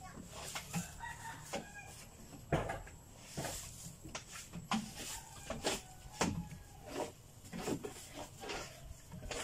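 A broom sweeping a wooden plank floor, in short, irregular strokes about one or two a second.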